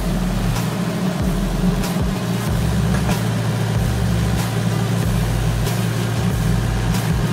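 Sunward mini excavator's diesel engine running steadily, with scattered short knocks at irregular moments as the machine works.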